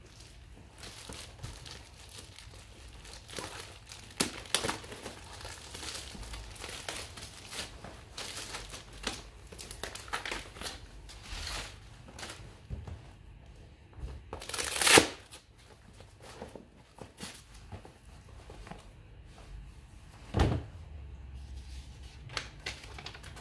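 Foil-faced document wallets being handled, with the foil fabric crinkling and rustling throughout. About fifteen seconds in there is one loud rip as a hook-and-loop closure is pulled open. A few seconds later there is a dull knock.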